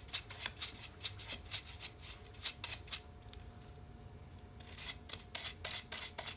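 Quick repeated scrubbing strokes, about four a second, cleaning sand and grime out of a dirt bike's chain track. They stop for about a second and a half midway, then resume.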